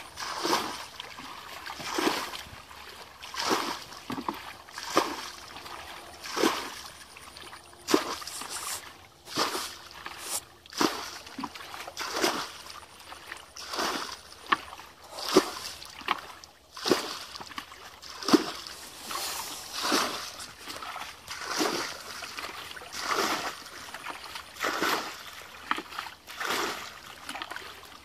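Muddy pond water and mud being scooped by hand and flung out, a splash about every second and a half.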